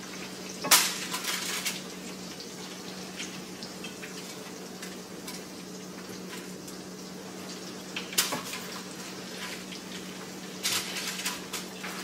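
Breaded chicken frying in oil in a skillet, a steady sizzle over a low hum. A utensil clinks and scrapes against the pan as pieces are lifted out: sharply about a second in, again near eight seconds and around eleven seconds in.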